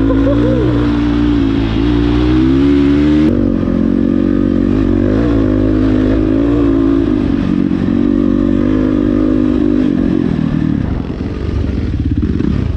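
Single-cylinder four-stroke enduro dirt bike engine running loud, its pitch climbing over the first few seconds, changing abruptly about three seconds in, then rising and falling as the throttle is worked, with a short drop near the end.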